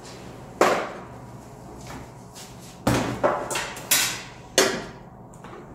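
About five sharp knocks and thuds as an electric pressure rice cooker is set down on a tabletop and a portable gas burner's butane canister is handled.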